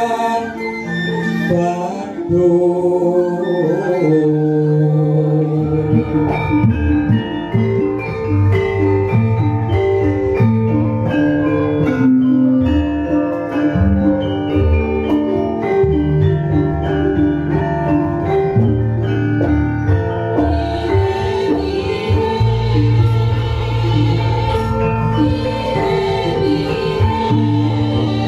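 Javanese gamelan ensemble playing wayang kulit accompaniment: interlocking notes of bronze metallophones and gongs in a steady rhythm, with deeper notes joining about six seconds in.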